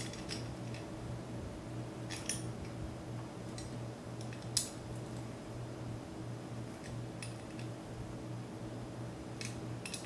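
Pliers clicking against the nut and posts of a Koolance CPU water block's metal mounting bracket as the last post is tightened: a few scattered light metal clicks, the loudest about four and a half seconds in, over a steady low hum.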